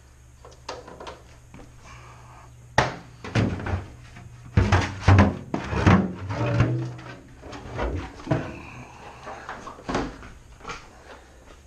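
Large plastic water jugs being handled on a hard floor: a run of irregular knocks and thumps, with a sharp one about three seconds in and a dense cluster near the middle.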